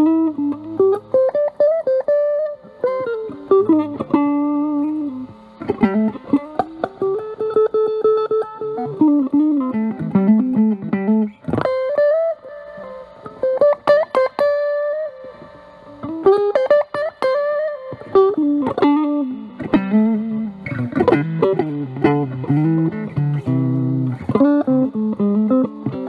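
Fender Stratocaster played through a Dunlop JDF2 Fuzz Face germanium fuzz pedal (NTE158 transistor) into a Vox Pathfinder 15R amp. It plays improvised single-note lead lines with many string bends, moving to lower notes near the end.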